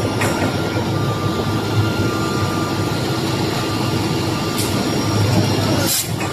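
CNC optimization cross-cut saw machine running with a steady mechanical hum, with short bursts of air hiss about four and a half and six seconds in.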